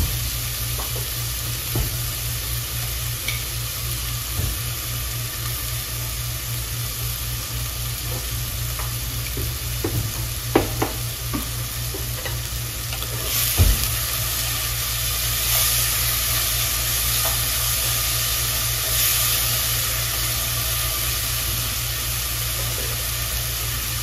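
Crushed shallots and curry leaves sizzling in hot coconut oil in a clay pot: a steady frying hiss that grows louder about halfway through. A few light knocks come around the middle.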